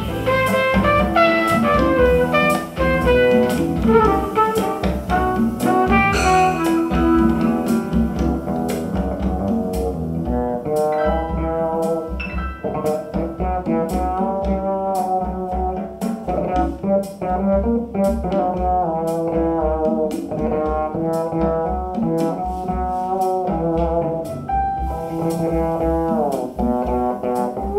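Instrumental jazz music with no singing: horns over a double bass, with a steady pulsing bass beat.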